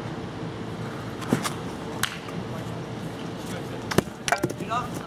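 Sharp plastic knocks from a wiffle ball bat and ball, a few spread through, the loudest about four seconds in, over a steady hum.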